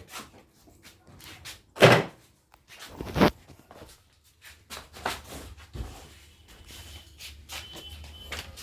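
A series of knocks and clunks from things being handled, the loudest about two seconds in and another just after three seconds, with a low hum setting in from about three seconds on.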